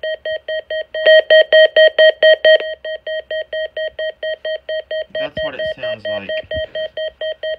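Midland WR-300 weather radio sounding its siren alert tone: a rapid electronic beeping of about five pulses a second. It is louder for about a second and a half soon after the start, then steady at a lower level as the alert level is set from high to low.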